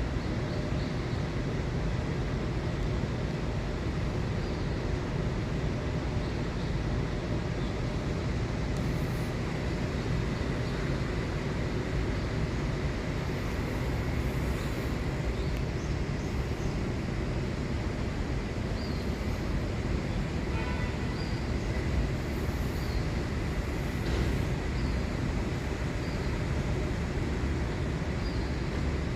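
Steady low rumble of a moving vehicle, with a few faint small ticks scattered through it.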